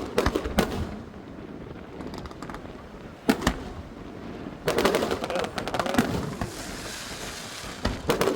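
Fireworks display: sharp bangs of aerial shells bursting, two close together about three seconds in, then a run of rapid crackling reports for about two seconds in the middle and more bangs near the end.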